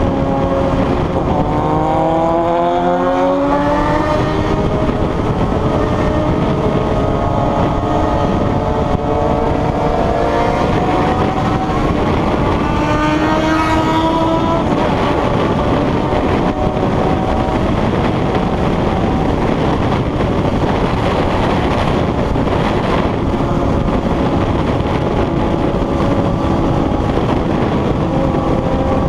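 Inline-four sport motorcycle engines under acceleration, pitch climbing as they rev up about a second in and again around the middle, with rushing wind and road noise throughout.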